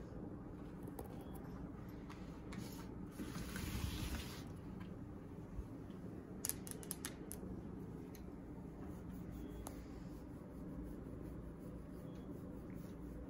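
Domestic tabby cat purring steadily while being stroked. A short rustling burst comes about three to four seconds in, and a few sharp clicks a little after six seconds.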